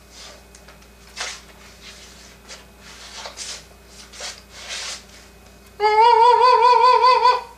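A man's voice holding one long, high falsetto note with a steady vibrato for about a second and a half near the end, cut off sharply. It is the loudest sound here, and it comes after a few short breathy hisses.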